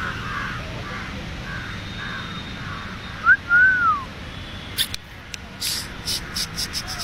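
A short whistle that rises, then arches down, about three seconds in, the loudest sound here, followed by a string of quick, sharp clicks, over birds chattering in the background.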